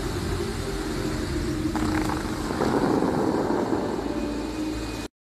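Steady outdoor rumble and hiss picked up by a phone microphone, swelling a little about halfway through and cutting off abruptly near the end.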